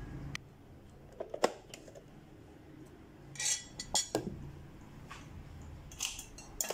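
A blender's plastic grinding jar and containers being handled on a countertop: the jar lifted off the motor base and set down, with scattered sharp clicks and knocks and a brief scraping rustle about three and a half seconds in.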